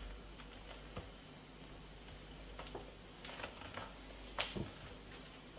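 Scattered light clicks and taps of objects being handled, the sharpest about four and a half seconds in, over a faint steady hum.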